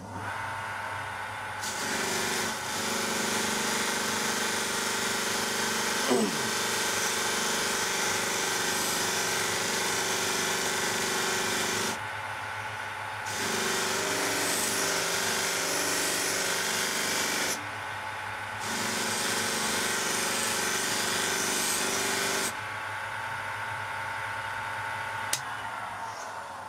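Electric bench polisher running with a steady hum while a Benchmade Mini Griptilian knife blade is pressed to its spinning felt wheel charged with grey polishing paste, giving a loud hiss in three long passes with short breaks about 12 s and 18 s in. Near the end there is a click and the motor winds down.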